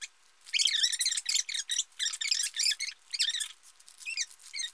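Transfer tape being peeled away from its paper backing, lifting a cut vinyl stencil with it: sticky tape coming unstuck in several stretches with short pauses.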